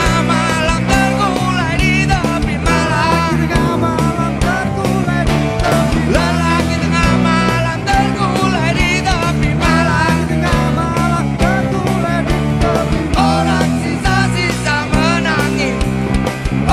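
Live rock band playing an instrumental passage: electric guitars, bass and drums keep a steady beat while a lead line bends and wavers in pitch over them.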